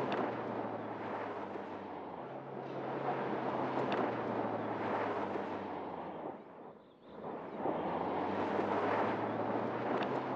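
Mercedes-Benz GLC 300d's four-cylinder diesel engine running as the SUV drives fast along a dirt track, with steady rumbling tyre noise on loose dirt. The sound drops away briefly about seven seconds in, then returns.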